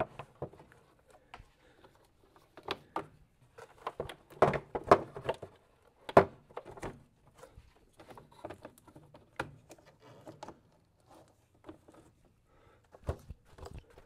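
The plastic engine cover and ribbed air-intake duct of a 2011 Volkswagen Jetta being handled and pressed back into place. Irregular plastic clicks and knocks sound throughout, the sharpest about five and six seconds in and another pair near the end.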